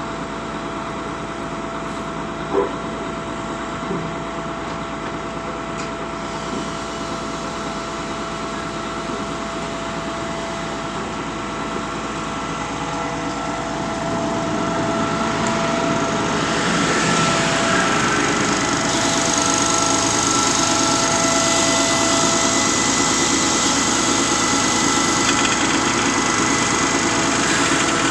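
Concrete pump's engine and hydraulics running steadily, growing louder and brighter about halfway through, with one sharp knock early on.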